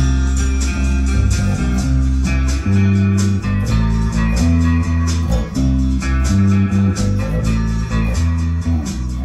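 Electric bass guitar playing a moving line of deep, held notes, changing about every half second, along with a full band recording with electric guitar and a steady beat.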